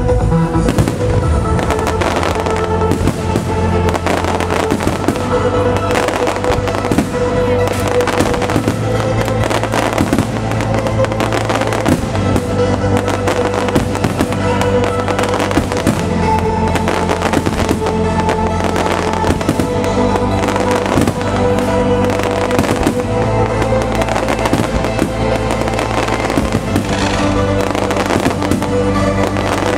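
Aerial firework shells bursting again and again, with many sharp bangs, over loud trance music played through the display's loudspeakers in sync with the fireworks.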